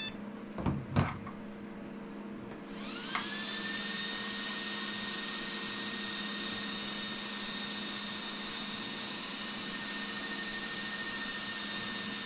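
Two quick knocks, then the electric motors and gearing of an RC truck chassis spin up with a rising whine about three seconds in and run on as a steady high-pitched whine, powered on the bench during a function test.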